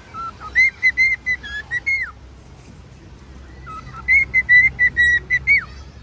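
Cockatiel whistling its song: two phrases of quick, clear notes on nearly the same pitch. Each phrase ends in a falling slide, with a pause of about a second and a half between them.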